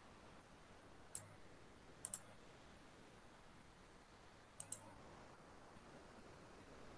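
Computer mouse clicking over quiet room tone: a single sharp click about a second in, then two quick double clicks, one around two seconds in and one near five seconds.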